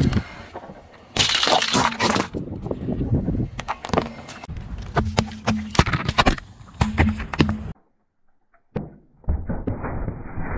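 A car tyre rolling over and crushing objects: a run of sharp crunches and cracks. About a second of silence follows, then a sharp crack and a rushing hiss as drink cans burst under the wheel and spray.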